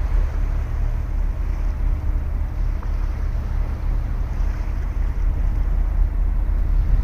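Ocean waves washing onto a beach, a continuous surf wash that swells and eases, with wind rumbling on the microphone underneath.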